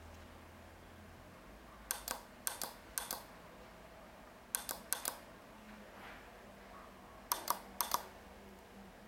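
Small tactile push-button switch on a circuit board clicking as it is pressed and released. The sharp double clicks come in three bunches of quick presses.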